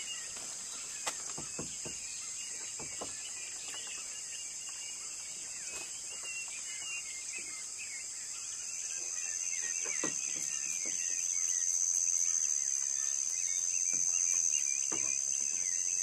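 Steady high-pitched insect chorus, getting louder from about halfway through, with faint bird chirps and a few soft knocks and rustles.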